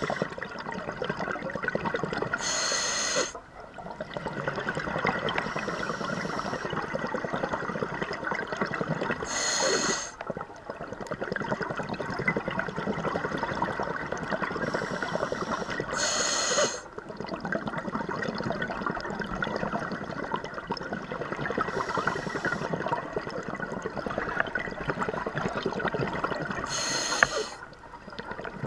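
A scuba diver breathing through a regulator underwater. There are four short hissing inhalations. Each is followed by a long, steady rush of exhaled bubbles.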